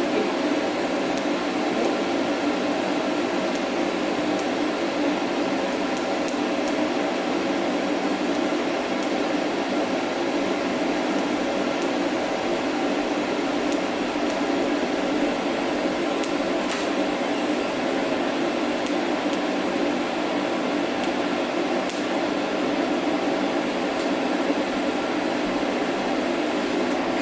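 TIG welding arc running steadily: a continuous buzzing hiss with a few faint ticks, cutting off just before the end.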